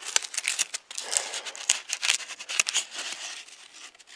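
Dry quaking aspen leaf crinkling and crackling in the fingers close to the microphone, a quick run of irregular rustles.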